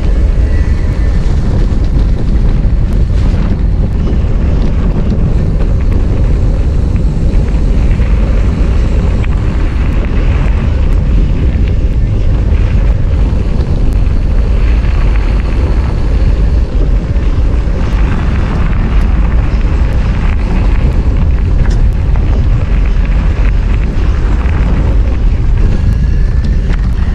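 Wind buffeting the microphone of a mountain bike rider's action camera while riding at speed: a loud, steady rumble mixed with the rolling noise of the bike's tyres on pavement, gravel and grass trail.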